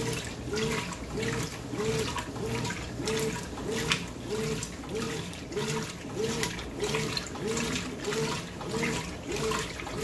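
Brastemp 14 kg top-load washing machine agitating a load at the medium water level: the motor's hum swells and falls with each back-and-forth stroke of the agitator, about twice a second, over steady churning and sloshing water.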